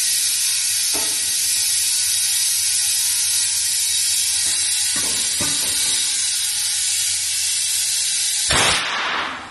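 Compressed air hissing steadily into a new truck tire in a tire inflation cage through an inflation hose. A few faint clicks come through over it. Near the end the hiss surges louder for a moment, then dies away.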